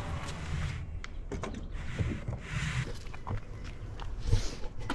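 Scattered light knocks, clicks and scuffs of footsteps on asphalt, with a couple of brief rushes of noise.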